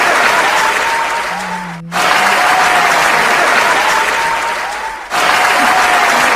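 Recorded applause sound effect playing on a loop: steady clapping that breaks off and starts over about every three seconds, twice in this stretch.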